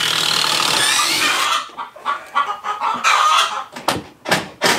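Chickens clucking and calling in a coop, loudest and densest for the first second and a half. A few sharp knocks come near the end.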